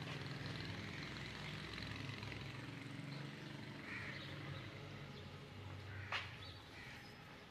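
Outdoor ambience with a low engine hum running throughout, a few crow caws, and one sharp knock about six seconds in.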